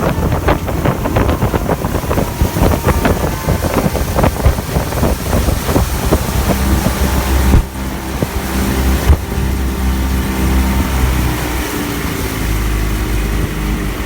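Large underwater fireworks going off: dense crackling and popping for the first several seconds, with a few sharp bangs. From about halfway, a steady low engine hum runs under it, and there is wind on the microphone.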